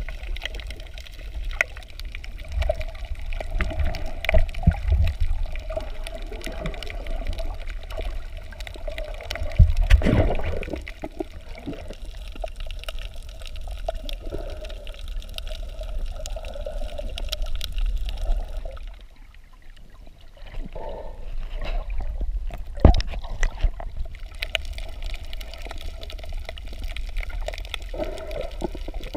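Water moving around a camera held underwater while snorkelling: a muffled sloshing with a steady low rumble and scattered sharp knocks, loudest about ten seconds in and briefly quieter about two-thirds through.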